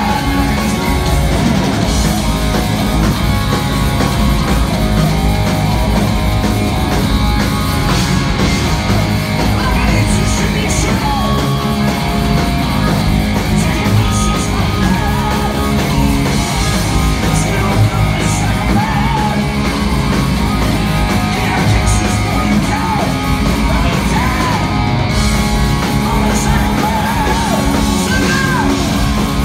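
Heavy metal band playing live and loud: electric guitars, bass and drums, with a male singer's vocals.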